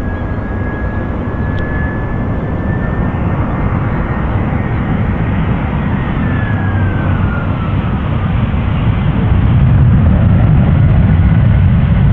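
Jet airliner's engines: a steady rumble carrying a high whine that glides down in pitch about halfway through, the rumble growing louder toward the end.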